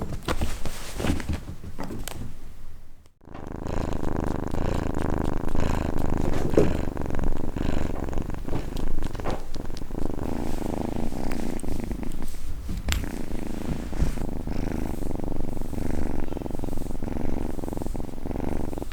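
Domestic cat purring loudly and steadily, after a brief break about three seconds in.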